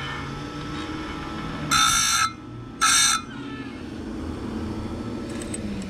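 Electric bench chain grinder running steadily, its abrasive wheel grinding a saw-chain tooth twice, each grind about half a second long and about a second apart. A few faint clicks come near the end.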